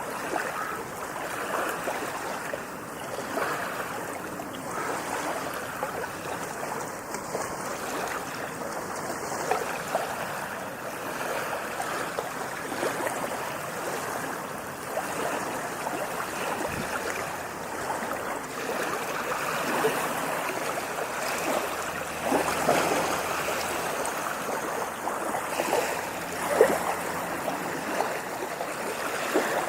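Water rushing and splashing continuously, an even wash of noise broken by many small gurgles and splashes, with one louder splash near the end.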